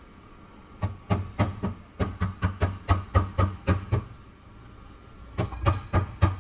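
Hammer blows on the car's sheet-metal wheelhouse panel, in quick even runs of about four or five strikes a second with short pauses between the runs, as the dented metal is worked back into shape.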